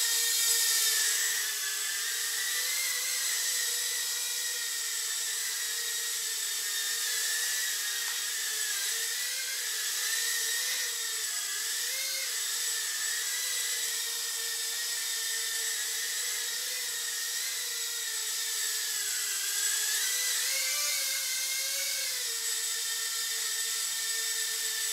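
Eachine E011 tiny-whoop micro quadcopter in flight: its small motors and ducted propellers make a steady high-pitched whine that wavers up and down in pitch now and then as the throttle changes.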